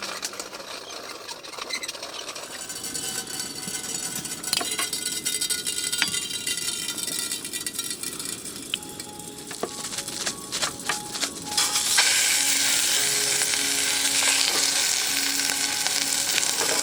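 Food frying in a hot pan, sizzling, with clicks of stirring and scraping. About twelve seconds in the sizzle suddenly gets much louder, as if food has gone into the hot oil, and stays loud.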